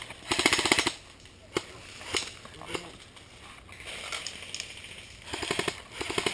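Airsoft guns firing rapid automatic bursts: a short burst near the start, a few single shots, then a longer burst from about five seconds in.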